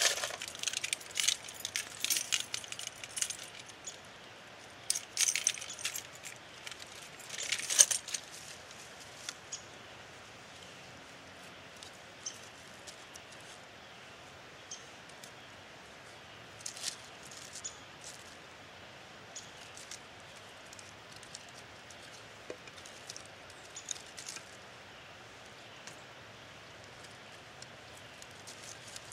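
A freshly lit kindling fire catching, with sharp crackles and clicks and the light knocks of sticks of wood being laid onto it. The crackles are dense for the first several seconds, then thin out to scattered clicks.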